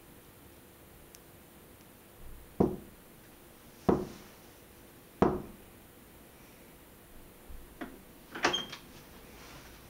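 Three slow, loud knuckle knocks on a wooden door, about a second and a quarter apart, followed near the end by a few fainter knocks and clicks.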